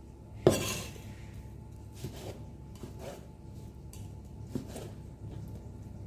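A sharp metallic clank with a short ring about half a second in, then a cleaver slicing raw chicken thigh on a plastic cutting board, the blade knocking lightly on the board a few times.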